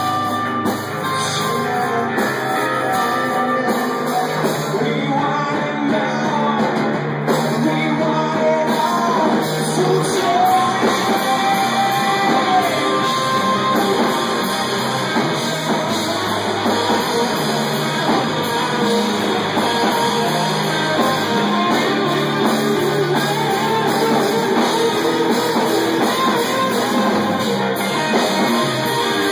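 Live rock band playing a song: electric guitars, bass guitar and a drum kit, loud and steady.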